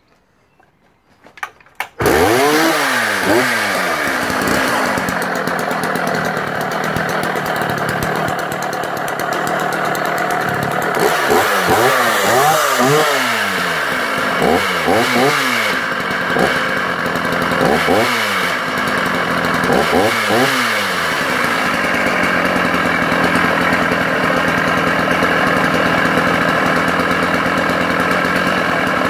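Sachs Dolmar 133 85 cc two-stroke chainsaw engine catching about two seconds in, then revved several times, the pitch rising and falling, before settling to a steady idle for the last several seconds. The engine runs with a rumble that the owner counts as an engine fault.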